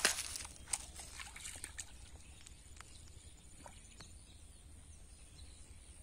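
Faint sloshing and splashing of shallow muddy water as hands grope through a field channel for fish. The loudest splashes come at the very start and again just under a second in, followed by scattered small drips and splashes.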